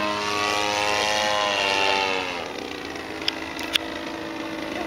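Radio-controlled 3D Fly Edge aerobatic plane's motor and propeller running, its pitch falling slightly as it passes, then fading to a fainter hum about halfway through. Two short sharp ticks come a little later.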